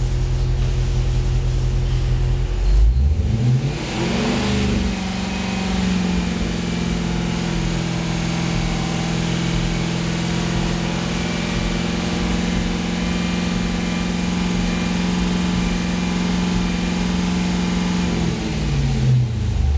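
A car engine runs at idle, is revved up about three to four seconds in, and holds at steady raised revs for about thirteen seconds. Near the end it drops back down to idle.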